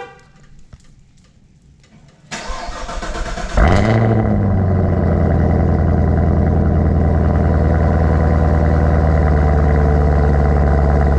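Chevrolet Camaro ZL1's supercharged 6.2-litre V8 cranking for about a second, catching with a brief rev flare, then settling into a steady, deep idle. It is heard at the exhaust tips through the stock mufflers, before a muffler delete.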